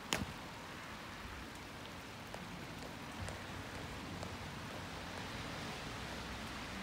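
Steady rain hissing on wet ground, with one sharp boot stamp from drill just after the start.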